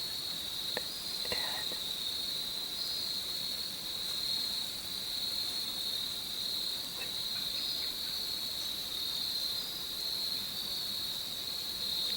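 Insects singing in a steady, continuous high-pitched chorus, with a few faint ticks.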